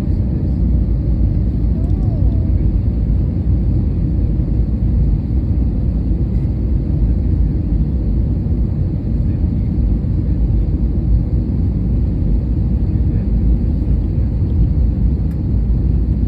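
Steady low rumble of an airliner heard from inside the passenger cabin: engine and airframe noise, even throughout.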